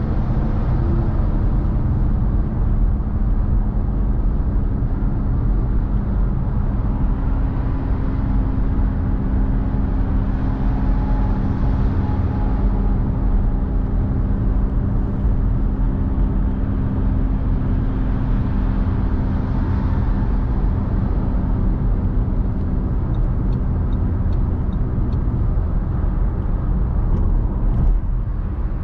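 Car driving at motorway speed on the autobahn: a steady rumble of tyres and engine, with a couple of gentle swells in the road hiss.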